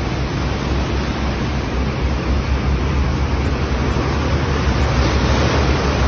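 Fast-flowing floodwater rushing across a road and over a kerb, a steady loud wash of water noise with a low rumble beneath it.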